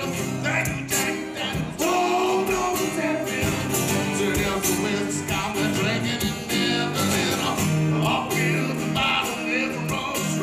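Two acoustic guitars strummed together while a man sings, a live acoustic duo performance.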